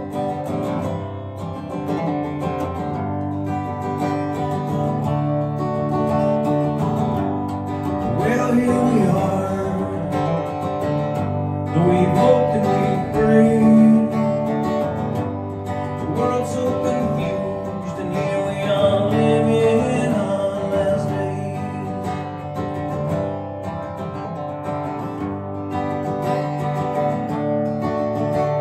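Martin DSS-17 acoustic guitar strummed and played through effects pedals and a PA system. A man's singing voice comes in about eight seconds in.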